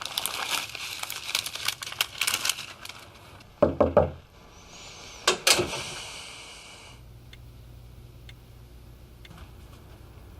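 Rapid clattering clicks for about three seconds, then a heavy thud, and a second sharp knock about a second and a half later over a brief hiss.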